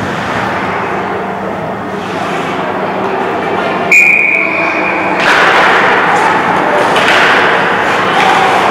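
A hockey referee's whistle blown once, a single steady high note of a little over a second, about four seconds in. It sounds over the steady noise of the rink, which grows louder after the whistle.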